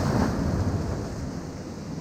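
Ocean waves breaking on rocks, the rush of surf fading away as a wave spends itself, with wind on the microphone.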